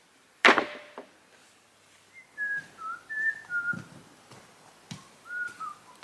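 One loud knock about half a second in, then a woman whistling a slow tune: single drawn-out notes that slide in pitch, with a few soft knocks between them.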